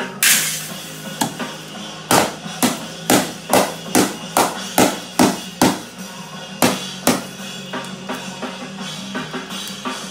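A toddler beating a plastic toy drum set with drumsticks: sharp hits about two a second in the middle stretch, then a few scattered strikes, over background music.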